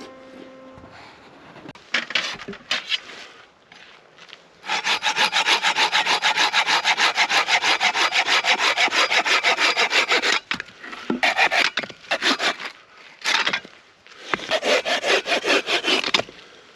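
Hand saw cutting through wood in quick, even back-and-forth strokes: a long run of sawing, then two shorter runs, with a few scrapes before it starts.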